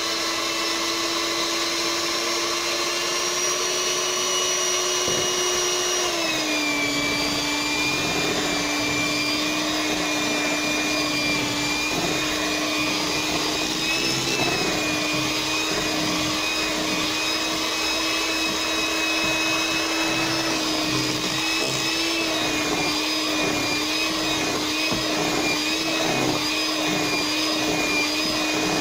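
Electric mixer running steadily, beating a thick cream-cheese and peanut-butter cheesecake batter; its motor whine drops in pitch about six seconds in and then holds.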